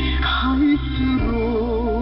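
A North Korean song: a singing voice with wide vibrato over instrumental accompaniment, received on shortwave radio, so it sounds narrow and muffled with no treble.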